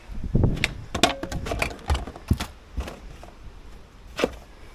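Irregular knocks and clatter of a drip tray being handled and set in place under the car.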